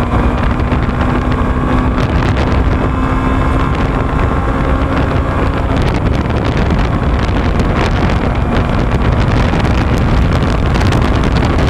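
Hero Hunk single-cylinder motorcycle riding at speed, the engine's hum under heavy wind rumble on the microphone. A steady engine tone drops away about halfway through.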